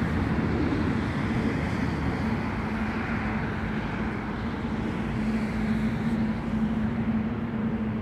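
Steady road-traffic noise, with a low even drone coming in about two seconds in.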